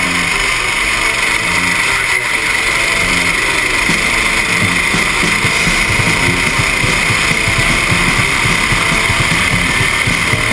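Go-kart engine running hard at racing speed, heard from the kart itself, under a steady rushing noise.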